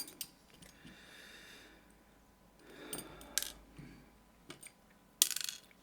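Small metallic clicks and clinks of a pin-tumbler lock cylinder being taken apart by hand, its plug and pins handled with a follower, ending about five seconds in with a short, sharper metallic clatter as a part slips.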